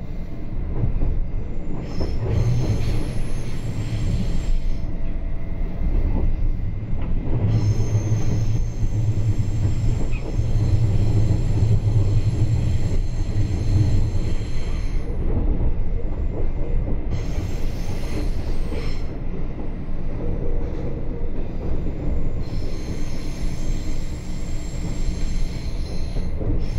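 Inside a RABe 526 (Stadler FLIRT) electric multiple unit rolling through a station throat: steady rumble of wheels on rails, with high-pitched squealing that comes and goes in several stretches.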